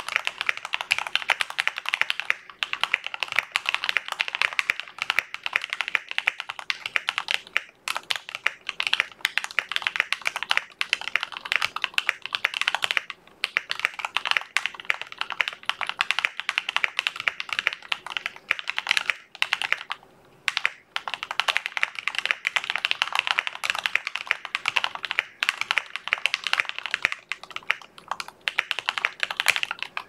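Fast continuous typing on an EasySMX KW75 mechanical keyboard with lubed Gateron Milky Yellow linear switches, a tape mod and Akko ASA keycaps, with a few short pauses. The keypresses are dense clicks and clacks heard through a webcam microphone.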